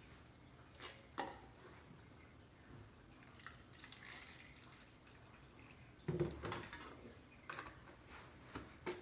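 Scattered light clicks and knocks of kitchenware being handled, with a heavier thump and short rattle about six seconds in.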